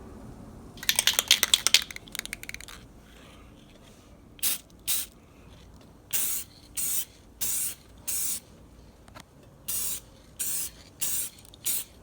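Aerosol can of clear coat being sprayed onto a headlight lens in about ten short, separate bursts of hiss. It starts with a quick loud rattle, as of the can's mixing ball being shaken.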